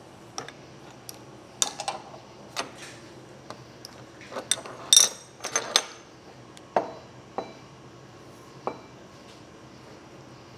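Steel clamps, a wrench and a steel block clinking and clanking on a steel machine table as they are loosened, moved and lifted off, in a string of separate sharp knocks; the loudest cluster comes about five seconds in.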